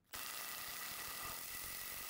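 Makita brushless impact driver kicking in sharply and hammering steadily as it drives a wood screw into timber with a PZ2 bit.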